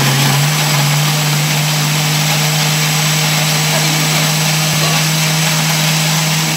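Electric countertop jar blender running at one steady speed with a loud motor hum and whirring, blending tomatoes with garlic and chilli into a smooth purée.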